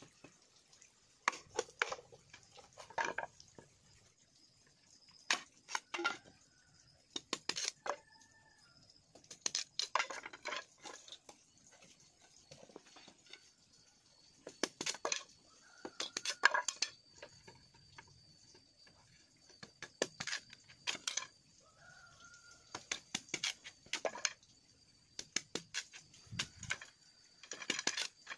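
Machete splitting bamboo into thin slats: clusters of sharp clicks and cracks every two to three seconds as the blade works along the stem and the bamboo splits.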